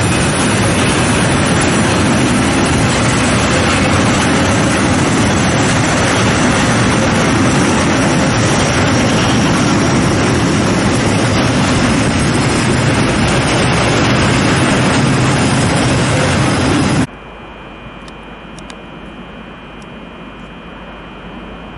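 Freight train of covered hopper wagons rolling past at close range: a loud, steady rumble and clatter of wagon wheels on the rails. About 17 seconds in it cuts off abruptly, leaving a much quieter background with a faint steady whine.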